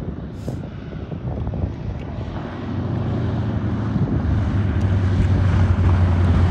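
De Havilland Beaver floatplane's nine-cylinder radial engine running at low power on the landing run, a steady low hum growing louder as the plane comes closer. Its floats skim the water after touchdown, adding a rushing hiss of spray.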